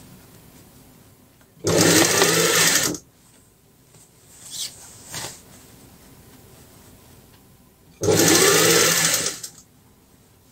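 Industrial sewing machine running in two short bursts of stitching, each about a second and a half long, several seconds apart, with two faint rustles between them.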